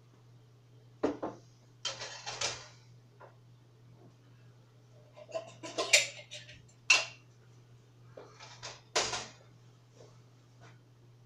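Pots, pans and utensils being handled at a kitchen stove: a series of separate clanks and knocks, loudest about six, seven and nine seconds in, over a steady low hum.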